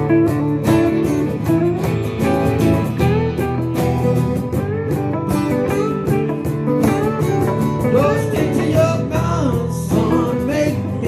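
Acoustic country band playing an instrumental break: strummed acoustic guitars holding the chords while a lead part plays a bending melody over them.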